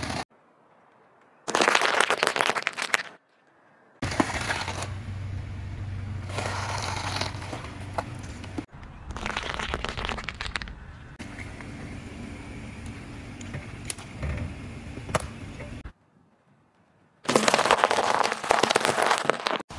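Car tyre slowly rolling over and crushing things: several separate stretches of loud crackling and crunching, with a low engine and tyre rumble under some of them and short silent gaps between.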